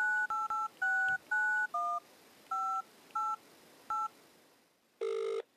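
Phone keypad dialing tones: nine short two-note beeps at an uneven pace as a number is keyed in. Near the end come two short buzzes close together: the ringing tone on the line as the call goes through.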